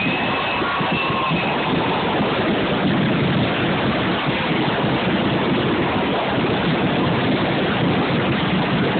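A dense fireworks barrage, bangs and crackling running together into one continuous din, picked up by a phone's microphone. Faint whistles sound near the start.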